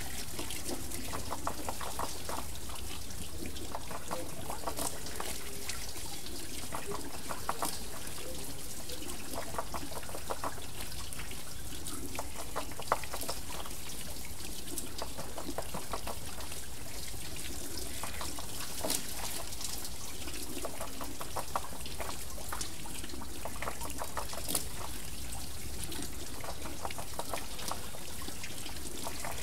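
Water wheel turning, with water steadily pouring and trickling off it and bursts of splashing every few seconds.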